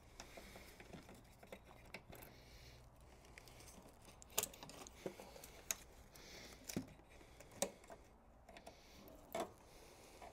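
Faint, scattered clicks and knocks of pliers and hands working at a plastic clip on a bracket, about half a dozen separate clicks over several seconds.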